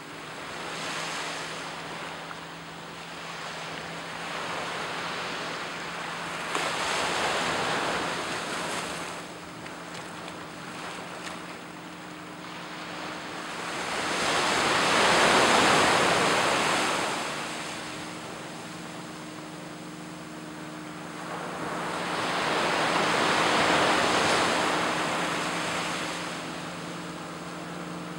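Small waves breaking and washing up on a sandy beach: four slow swells of surf, the loudest about halfway through. A steady low hum runs underneath, from a distant motorboat.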